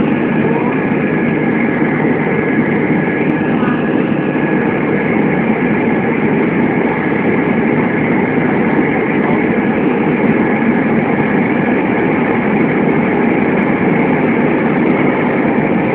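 Airbus A320 cabin noise: jet engines and airflow heard from inside the cabin as a loud, steady rush.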